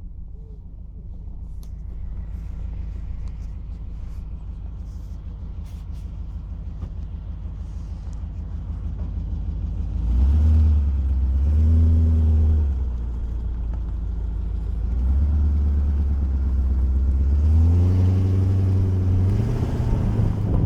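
Audi V8 engine idling with a steady low rumble, then revved several times in the second half, its pitch rising with each rev and held higher for a few seconds near the end.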